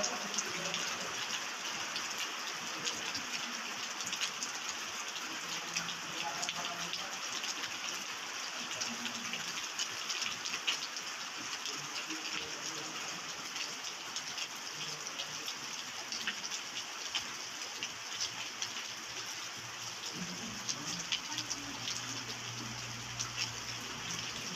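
Steady rain falling, an even hiss made up of many small drop impacts.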